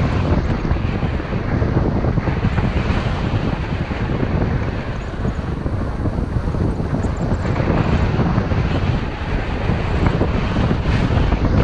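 Strong wind rushing over the microphone, heaviest in the low range, rising and falling in gusts.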